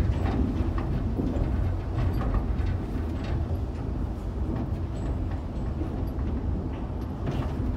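Salt-mine hoist cage travelling down the shaft: a steady low rumble with scattered faint clicks and rattles.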